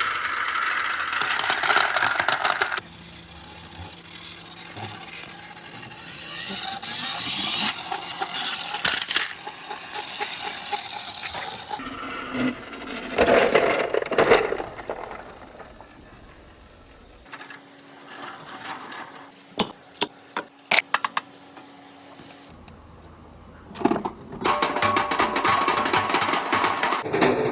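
Many glass marbles clattering and rolling along a plastic marble run: a dense rattling pour at the start and again near the end, a softer rolling passage between, and a string of separate sharp clicks of single marbles knocking together about two-thirds of the way through.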